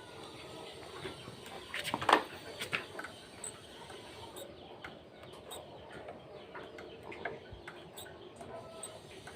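Scattered light clicks and taps of hand work on a motorcycle throttle assembly, with a brief louder rattle of clicks about two seconds in.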